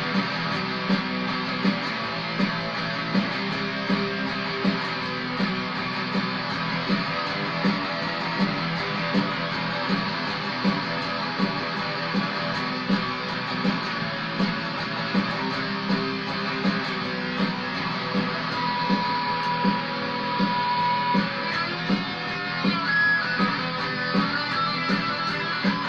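Squier Stagemaster electric guitar played in the key of E, strummed over a steady beat that hits about every three-quarters of a second, with a held note about two-thirds of the way through.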